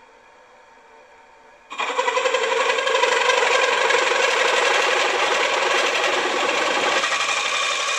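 Large twist drill, driven by the machine's spindle, drilling out a hole in a metal casting. The running machine is faint at first, then about two seconds in the drill bites and a loud, steady cutting noise carries on as it feeds through.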